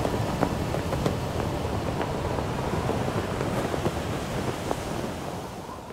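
Wind and sea wash, a steady rushing noise with scattered faint ticks, fading away near the end.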